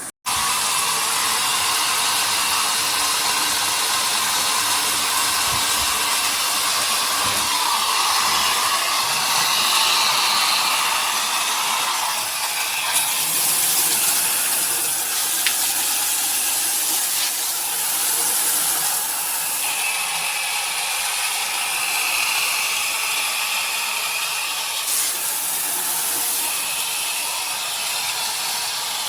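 Water spraying steadily from a handheld shower head: a loud, even hiss that shifts a little in tone as the spray moves.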